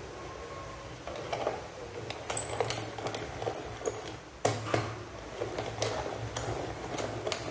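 Hand-cranked pepper mill grinding black peppercorns, a gritty crunch on each turn of the crank, about twice a second, starting about two seconds in after a few small clicks.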